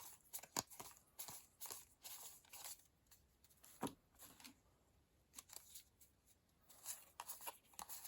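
Trading cards being handled and sorted: a run of soft clicks and rustles as cards slide and tap against each other, thinning out for a few seconds in the middle with one firmer tap about four seconds in.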